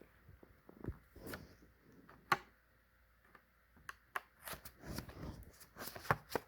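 Coins and their plastic holders being handled at a coin album: scattered light clicks and rustling. There is a sharp click about two seconds in and a brief lull after it, then more clicking and rustling.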